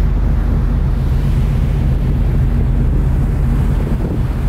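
Ferry's engines droning steadily, with wind buffeting the microphone and the wash of the sea.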